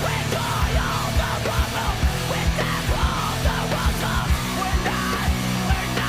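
Heavy rock music with shouted vocals, driving bass and frequent kick-drum hits.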